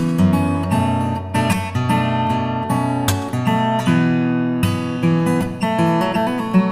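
Background music: acoustic guitar playing chords, the notes plucked and left to ring.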